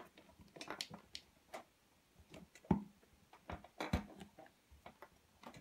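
Irregular light clicks and knocks of a rocker switch and wiring being pushed and seated into the tube body of a homemade cordless hand drill.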